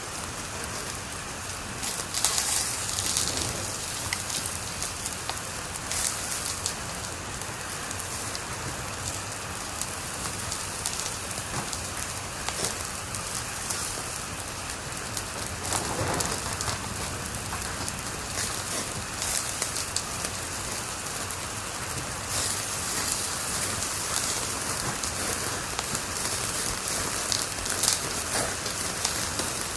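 Wood fire crackling in a fireplace: a steady hiss full of small snaps and pops, with a louder crack about sixteen seconds in.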